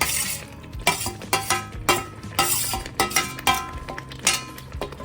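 A metal spoon stirring chicken pieces into masala in a metal pan, scraping and knocking against the pan about a dozen times at an uneven pace, some knocks leaving a brief metallic ring.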